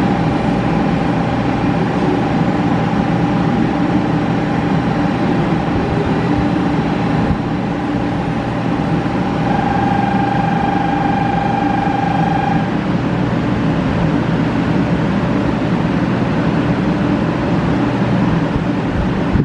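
A 500 series Shinkansen trainset standing at the platform, its onboard equipment running with a steady hum and a high whine. The whine grows louder for about three seconds around the middle.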